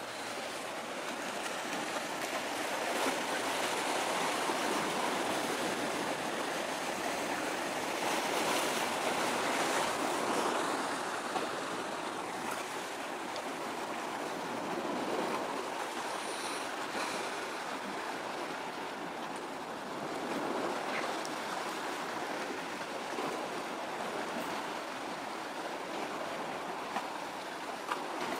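Harbour water washing and lapping, a steady rushing noise that swells and eases.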